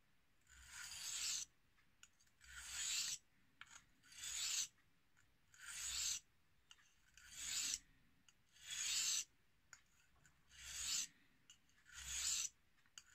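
A carving knife's steel blade is drawn across the wet 1000-grit side of a soaked combination whetstone. Eight scraping sharpening strokes come about one every second and a half, each growing louder and then stopping.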